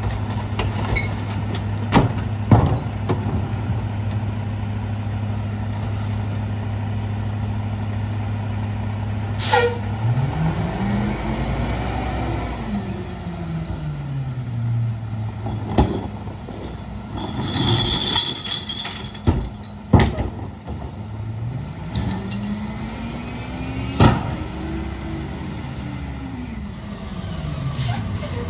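International rear-loader garbage truck idling steadily while bins knock against the hopper, then an air release hiss about a third in as the engine revs up and pulls away. The engine rises and falls in pitch twice as the truck drives off, stops with a brief high brake squeal, and accelerates again.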